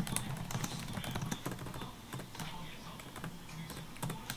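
Typing on a computer keyboard: a quick, irregular run of soft key clicks.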